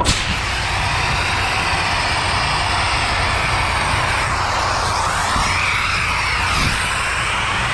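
A loud, steady hiss that starts suddenly and holds, over a low engine rumble.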